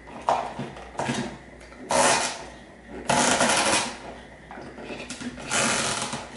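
Twist-on wire nut being screwed down onto a bundle of spliced wires, with the stiff copper wires scraping against each other and the electrical box in a series of rasping twists.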